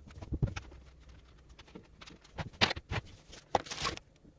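Light metallic clicks and taps of cable lugs and a nut being fastened onto a battery's terminal post, with a few louder clicks in the second half.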